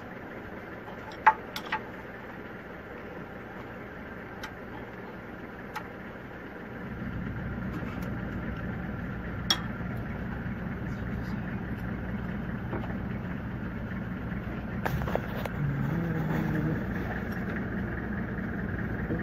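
A few sharp metal clinks of hand tools against the Toyota 2E engine's timing-belt parts, over a steady low mechanical rumble that gets louder about seven seconds in.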